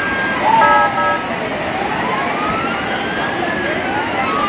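A car horn sounds briefly near the start, then a siren wails with slow rising and falling sweeps over steady street and water noise.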